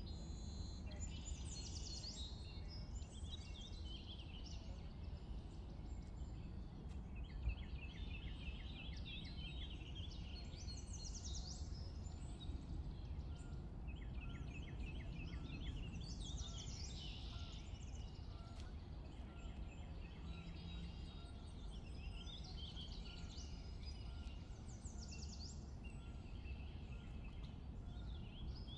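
Faint outdoor ambience of small birds singing and chirping, with quick trills and short song phrases every few seconds over a steady low rumble. One brief knock stands out about seven seconds in.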